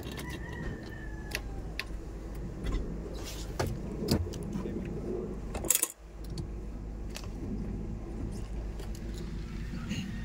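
1997 Honda Civic LXi engine running steadily at idle, with scattered clicks and rattles, likely keys, over it. The sound drops out briefly about six seconds in.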